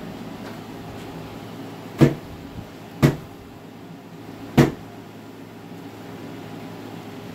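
Three sharp wooden knocks, about a second apart, as wooden beehive frames and hive box parts are handled and bumped together, over a steady low hum.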